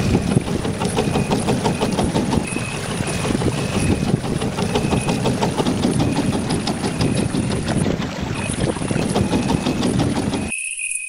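Small boat engine running with a fast, even chugging; it stops abruptly near the end.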